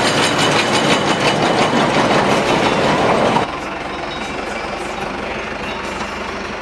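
Sipma Z279/1 round baler at work behind a Zetor 6245 diesel tractor: the pickup and rotor taking in grass make a loud, dense clatter with fast fine ticking. About three and a half seconds in, the sound cuts to the tractor's engine running steadily and more quietly, heard from inside the cab.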